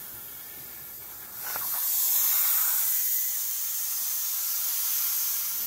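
Plasma cutter torch cutting steel plate on a CNC table: a steady hiss of air and arc, growing much louder about two seconds in.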